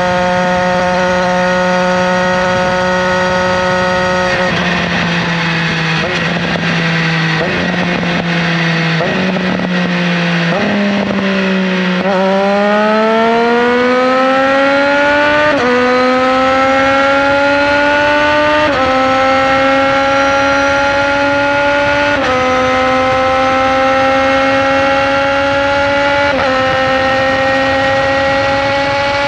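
Triumph Daytona 765 Moto2's inline three-cylinder engine heard onboard while riding. It runs steadily at first, then goes through a few brief throttle changes. From about twelve seconds in it accelerates hard through the gears: the pitch climbs, drops slightly at each upshift, and climbs again four more times.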